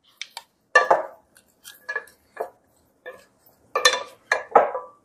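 Two wooden spoons tossing salad in a glass bowl: a string of short knocks and scrapes against the glass, some with a brief ring, with a busier cluster of knocks near the end.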